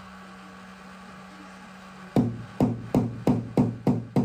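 A steady low hum. A little over two seconds in, a quick run of light hammer taps on the car's sheet-metal panel starts, about three a second, each with a brief metallic ring: paintless dent repair tapping on the panel.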